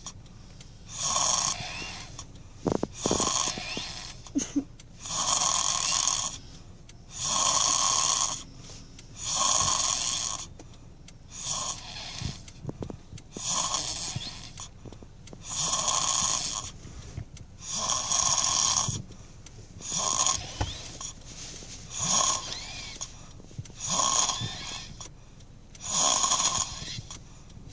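A child snoring steadily in sleep, with about one rasping snore every two seconds and quieter breathing in between.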